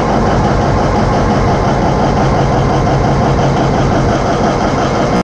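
Caterpillar 793B mining haul truck's diesel engine running steadily and loudly, heard up close.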